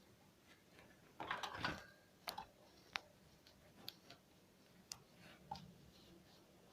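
Faint, irregular light clicks and taps from small cage birds, with a short flurry of soft chirps and scratches a little over a second in.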